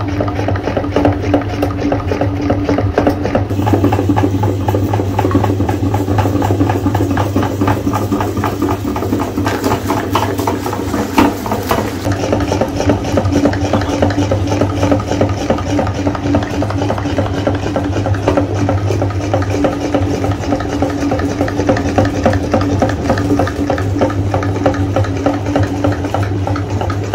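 Metal meat grinder running steadily as it pushes brown paste out through its plate, a constant low hum under a fast, dense crackle.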